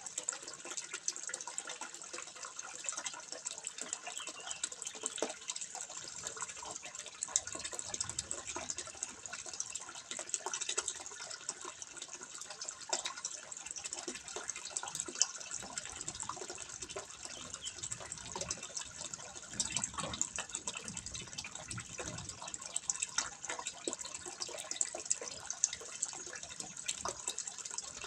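Water trickling and splashing into a fish pond: a steady patter of many small drips and splashes.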